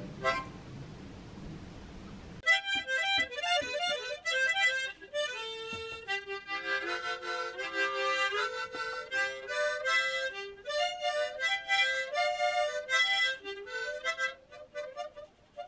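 Lively harmonica music, quick runs of notes with several sounding together, starting cleanly a couple of seconds in after a faint rushing hiss and a click.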